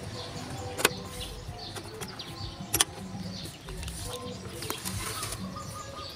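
Two sharp plastic clicks about two seconds apart as a JVC Victor RC-X750 portable CD boombox is handled and its CD lid is shut, with a few fainter ticks between.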